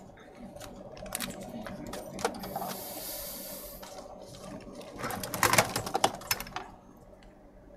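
Small tools and parts handled at a workbench: a run of sharp clicks and scrapes, a short hiss about two and a half seconds in, and a louder clatter of clicks and scrapes around five to six seconds in.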